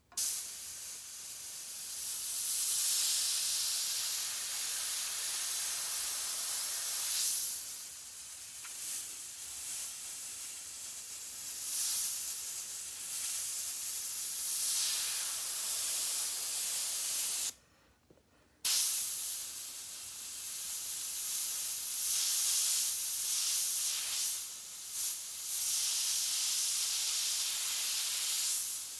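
Airbrush spraying paint: a hiss of compressed air that swells and eases as the trigger is worked. It cuts out for about a second partway through, then starts again.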